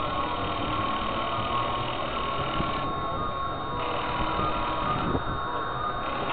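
Wind buffeting and hissing on a small camera microphone in a steady, fluctuating rumble, with a faint thin high whine under it.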